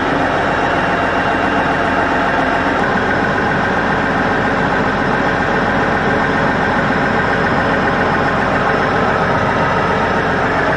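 A farm vehicle's engine running steadily.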